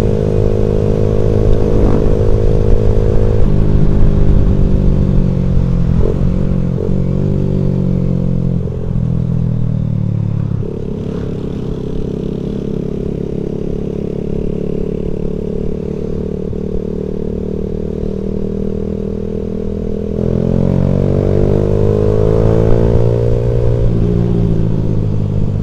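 Motorcycle engine running while riding. The revs drop in steps a few times in the first ten seconds and settle lower and steadier. They climb again about twenty seconds in and fall back near the end.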